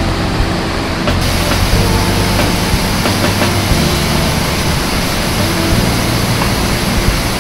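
Dynjandi waterfall's steady rush of water pouring down its rock tiers, loud and even, growing brighter and hissier about a second in.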